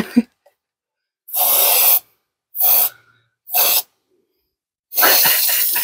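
Aerosol spray paint can hissing in four short bursts, the last one starting near the end and lasting longer.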